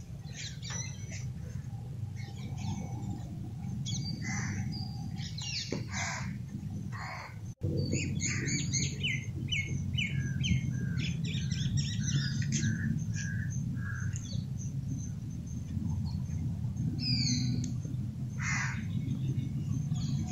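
Several birds chirping and calling in short repeated notes, busiest in the middle, over a steady low rumble.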